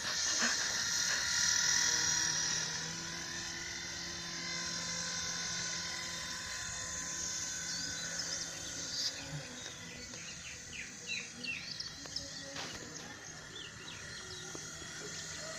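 Small electric motor and rotor of a toy RC helicopter whirring steadily, with a hissy high whine. Short bird-like chirps come in a little past the middle.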